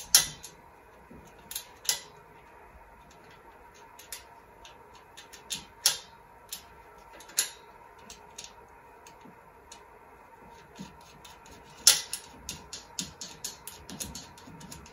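Sharp clicks and knocks of hard plastic and metal antenna parts being handled and fitted together by hand, irregular, with the loudest knocks at the start and about twelve seconds in, followed by a quick run of small clicks. A faint steady tone hums underneath.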